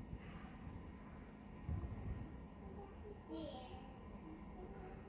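Cricket chirping in an even, fast pulse of about four to five chirps a second, faint, over a low background hum, with one soft low thump about a second and a half in.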